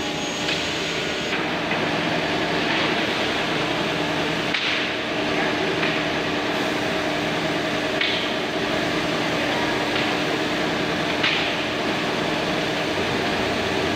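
Holztek CNC nesting router running its automatic board loader: a steady machine hum with a few short hisses of air as the pneumatic suction cups lift and move a board onto the table.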